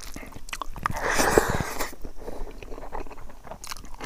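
Close-miked chewing of a mouthful of cooked pig's feet and rice, with wet mouth clicks and a louder, noisier stretch of chewing about a second in.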